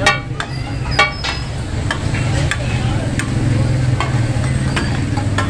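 Chicken frying on a large iron tawa griddle, with metal spatulas striking and scraping the pan: several ringing clangs, the loudest at the start and about a second in, then lighter clicks, over a steady low hum.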